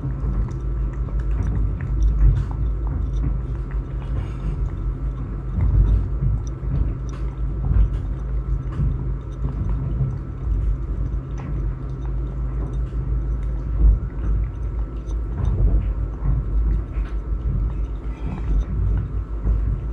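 A cat crunching dry kibble right at the microphone, with many short crunchy clicks over a heavy low rumble from the container being nudged and rubbed against the recorder.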